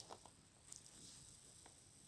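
Near silence: room tone with a few faint, soft ticks.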